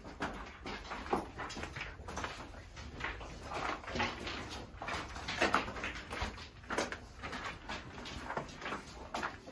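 Footsteps crunching on loose gravel and stones, an uneven series of short crunches about every half second, with a low steady rumble underneath.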